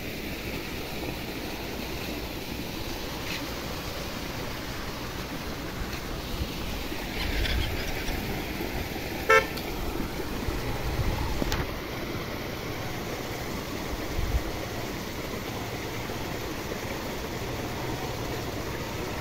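Steady outdoor background noise, with one short horn beep about nine seconds in.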